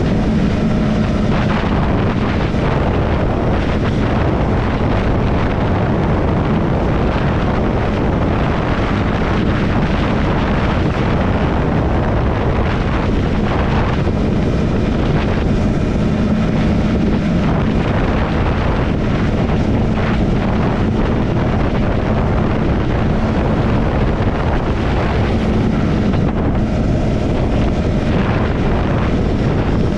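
Triumph Scrambler 400X's single-cylinder engine running steadily at cruising speed, with wind rushing over the microphone.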